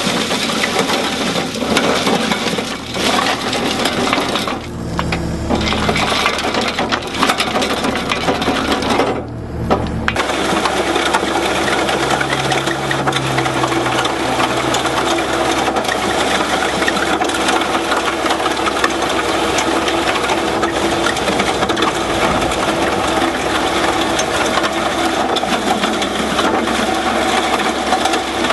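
Excavator screening bucket running, stones and soil rattling against its moving screen as the fines sift through, over the excavator's engine. The rattle is steady and loud, dipping briefly twice.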